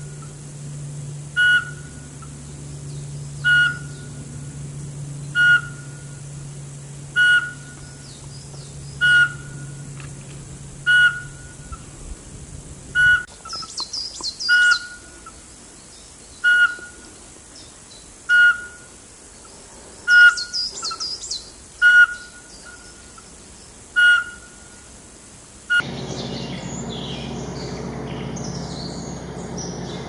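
Eurasian pygmy owl singing: a single clear whistled note repeated about every two seconds, about a dozen times, with bursts of higher twittering twice in between. Near the end the sound cuts abruptly to a busier high twittering over a steady low hum.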